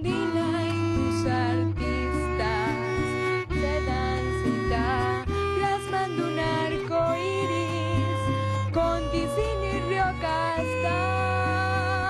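Small string ensemble playing: a violin carries the melody with vibrato over cello, double bass and classical guitar accompaniment.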